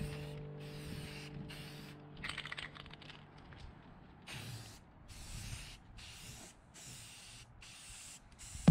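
Spray paint hissing in a series of short passes with brief breaks between them, and a short run of clicks about two seconds in.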